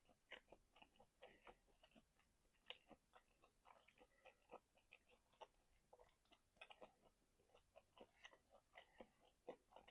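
Faint, close chewing: a person eating with wet mouth clicks and lip smacks, several irregular soft smacks a second.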